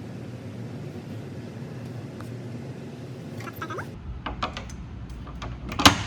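A steady low hum, then from about four seconds in several light clicks and knocks of parts being handled at a table saw, the loudest a single sharp knock near the end.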